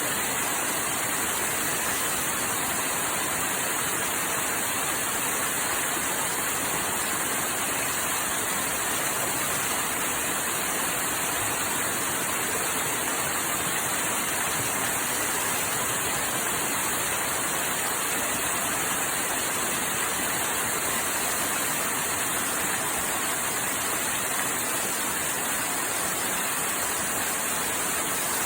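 Waterfall pouring, a steady even rush of water.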